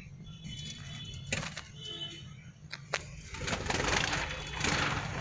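Java finches (Java sparrows) giving short high chirps, with a few sharp clicks and a steady low hum underneath; a louder rushing noise rises near the end.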